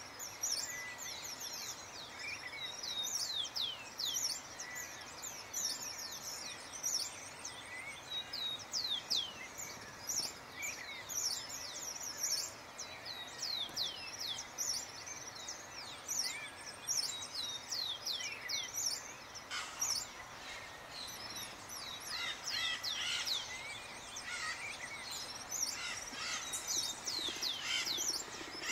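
A chorus of wild birds chirping, many short high notes sweeping downward over and over against a steady background hiss. In the later part, lower, rougher calls join in.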